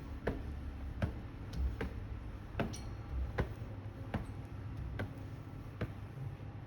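Footsteps on a hard floor at an even walking pace, a sharp click a little more than once a second, over a low background hum.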